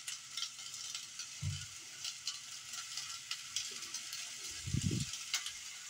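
Seasoning granules poured from a plastic shaker into a pot of water: a steady soft hiss with fine pattering ticks. Two low bumps come about a second and a half in and near the end.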